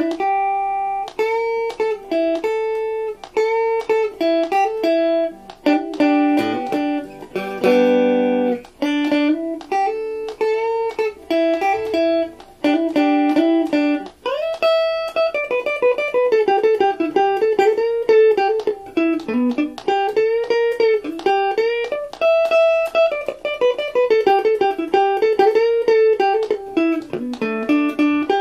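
Stratocaster-style electric guitar played solo: a single-note melody with string bends and vibrato, and a brief chord about eight seconds in.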